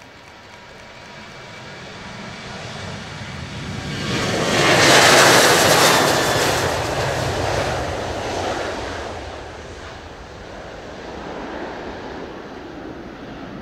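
Boeing 737-800's CFM56-7B turbofan engines at takeoff thrust: a roar that builds as the jet rolls closer, loudest about five seconds in as it passes, then fades slowly as it lifts off and climbs away.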